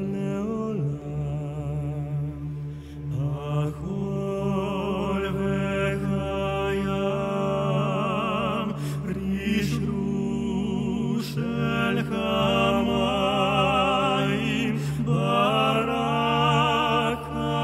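Men singing a slow, mournful Jewish melody with heavy vibrato, over a sustained low drone accompaniment.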